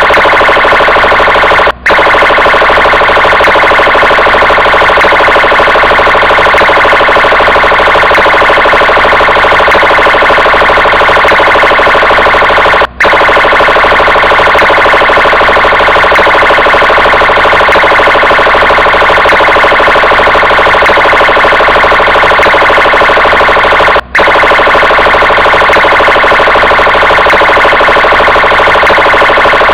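Police car siren sounding continuously and loudly, cutting out for a split second three times, about every eleven seconds, where the recording loops.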